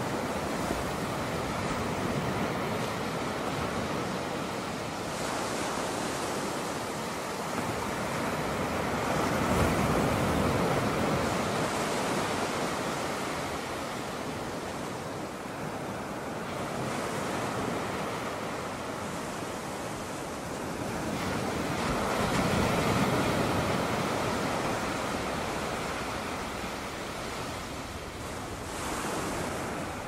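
Ocean surf breaking and washing up a sandy beach. It swells louder about ten seconds in and again a little past twenty seconds.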